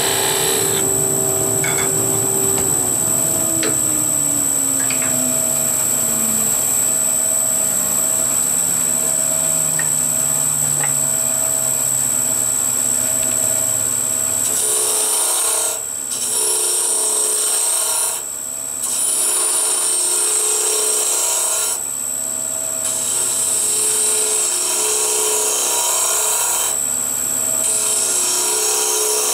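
Wood lathe running while a hand-held turning tool cuts a small wooden top body, throwing off shavings. The machine's whine drops steadily in pitch over the first ten seconds or so; from about halfway on, the cutting noise turns louder and hissier, with a few brief pauses.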